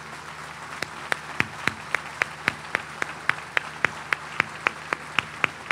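One person clapping hands close to a microphone: a long run of sharp, evenly spaced claps, about four a second, starting about a second in.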